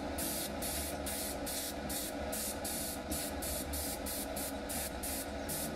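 Airbrush spraying paint: a continuous hiss that pulses about four times a second, over a low steady hum.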